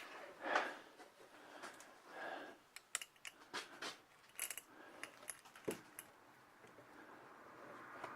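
Scattered light clicks and small metallic clinks of hand tools and hinge parts being handled, with brief rustling in between.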